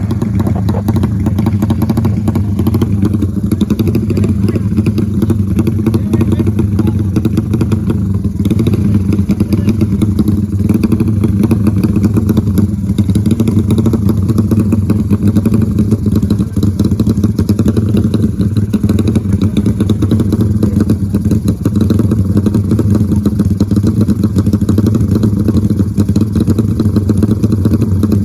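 Motorcycle engine running steadily during a trail ride, a loud, rough low drone with no let-up.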